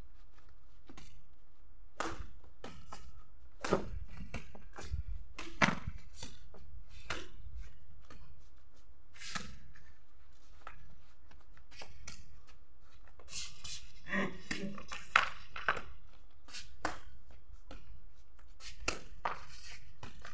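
Badminton rallies: rackets hitting a shuttlecock in short, sharp taps at irregular intervals, over a steady low rumble.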